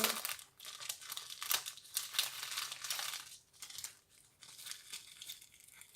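Packaging being opened by hand, with crinkling and tearing; busiest in the first half, then fainter, sparser rustles.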